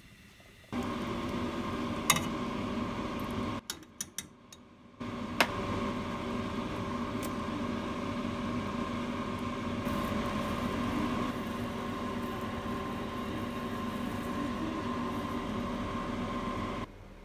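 Steady hum and whir of a kitchen appliance motor running, with a few sharp clicks, one about two seconds in and one about five seconds in, and a short quieter stretch of clicks between them.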